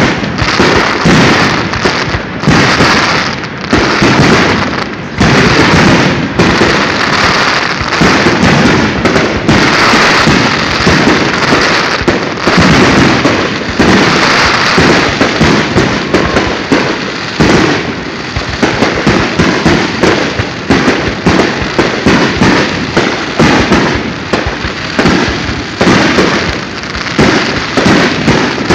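Aerial firework shells bursting in a dense, rapid barrage of bangs, several a second with no break.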